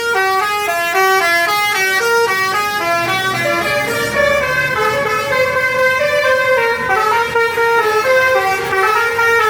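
Bus basuri telolet horn playing a melody: a run of quick stepped notes, several tones sounding together, then slower, longer-held notes from about four seconds in.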